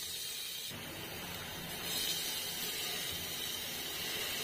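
Chopped onions sizzling in a hot steel pot, a steady hiss.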